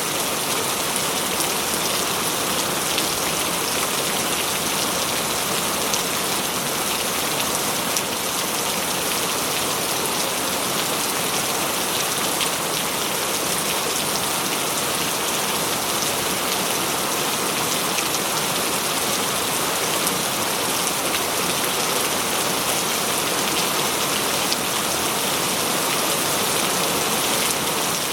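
Heavy rain falling steadily, a dense, even hiss of drops with many small individual drop ticks and no letup.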